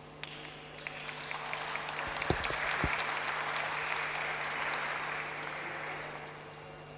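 Audience applauding: scattered claps at first, swelling to full applause about two seconds in, then dying away about six seconds in.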